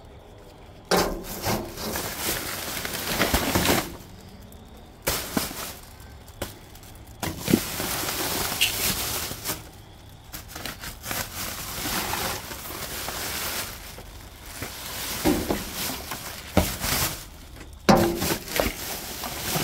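Rummaging through a dumpster's contents by hand: scraping, rustling and knocking of things being moved, in several bursts of a few seconds each with short pauses between.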